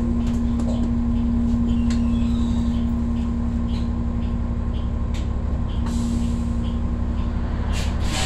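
Cabin sound of a New Flyer XDE40 diesel-electric hybrid bus with a Cummins L9 engine: a steady low rumble under one steady hum, with a few light rattles. A short hiss comes at the very end.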